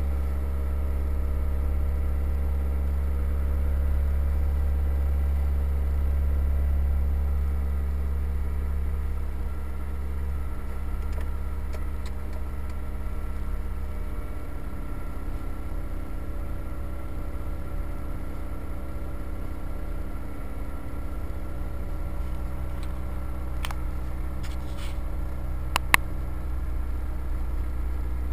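Toyota 1ZZ-FE 1.8-litre inline-four engine at cold-start fast idle of about 2000 rpm, heard from inside the cabin, warming up after a start at about −12 °C. Its steady note settles slightly lower in the second half, and a sharp click sounds near the end.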